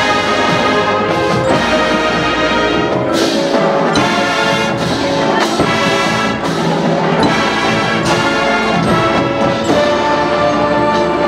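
High school marching band playing its halftime field show: brass-led wind band in held chords that change every second or so, punctuated by percussion hits.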